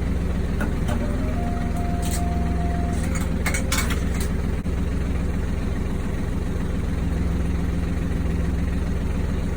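A yacht's inboard engine running at a steady drone, with a few light knocks about two to four seconds in.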